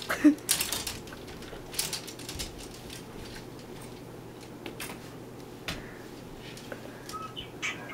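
Plastic clothes hangers clicking and scraping along a closet rod as clothes are pushed aside and pulled out, in irregular sharp clicks with a cluster in the first second and single knocks after.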